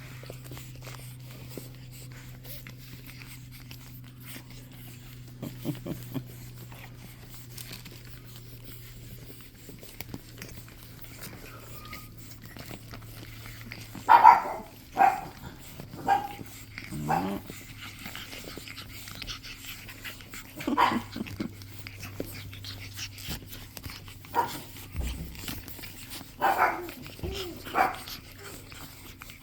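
Pug puppies barking in short, high calls: a quick run of them about halfway through and a few more near the end.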